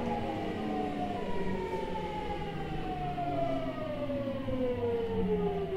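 Seibu 6000 series train's Hitachi GTO-VVVF inverter and traction motors whining in several tones that fall steadily in pitch, over the rumble of the running gear. The falling whine is the sign of the train slowing under braking as it comes into a station.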